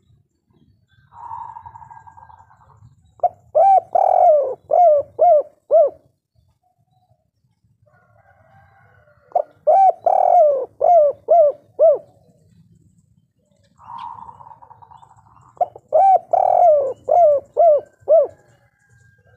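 A spotted dove sings its 'kuk 3' cooing song three times, about six seconds apart. Each phrase opens with a quieter rolling note, then a run of six or seven loud, short coos that rise and fall in pitch, the longest near the start of the run.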